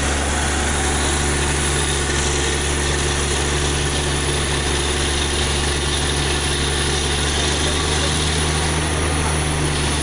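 Truck-mounted borewell drilling rig running steadily: a deep engine and compressor drone under a constant rush of compressed air blowing water and spray up out of the borehole.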